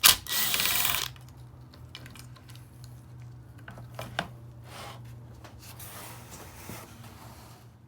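A screw being backed out with a hand tool in a car door's metal frame: a loud, rough rattling burst lasting about a second at the start. It is followed by scattered light metallic clicks and handling knocks, with one sharper knock about four seconds in.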